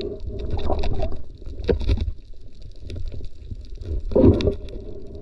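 Muffled underwater sound picked up through an action camera's waterproof housing: a low rumble of moving water with a few gurgling swells and faint scattered ticks.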